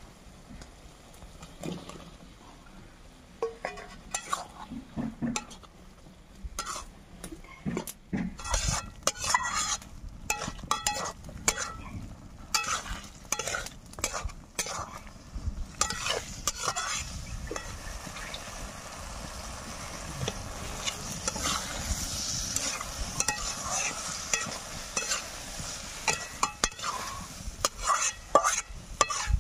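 A metal spatula scrapes and stirs potato pieces frying in a spiced paste in a kadai, with a clatter of strokes against the pan. About halfway through, the frying sizzle becomes a steady hiss under the scraping.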